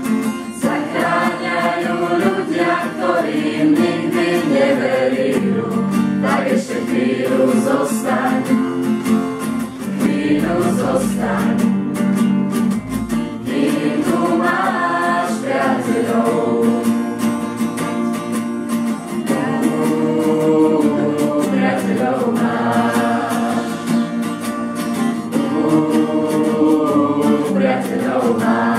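A group of voices singing a song together, with instrumental accompaniment.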